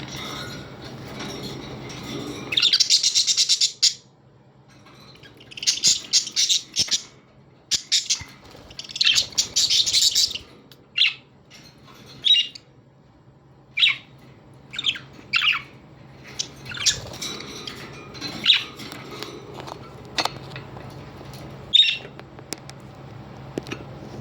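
Parrots chirping: three fast, chattering bursts of a second or two each in the first ten seconds, then single short, high chirps about every second.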